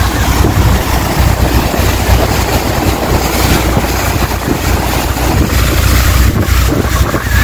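Heavy wind buffeting the microphone aboard a Sea Ray 560 Sedan Bridge motor yacht running across open water, with the boat's engine and water noise underneath as a steady low rumble.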